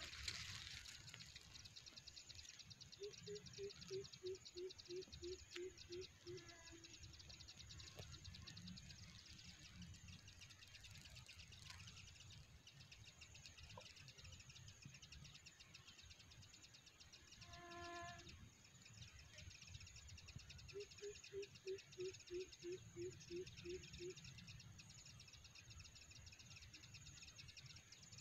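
Faint outdoor ambience: a steady high, fast-pulsing insect trill. Twice a bird gives a low series of about ten hoots, about three a second. About two-thirds through there is a single short call.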